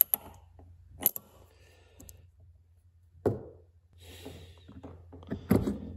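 About four sharp metallic knocks and clicks, a second or two apart, from the pinion yoke and bearing of a Mopar 8.75 pinion being handled and fitted while its bearing preload is checked by hand, over a low steady background hum.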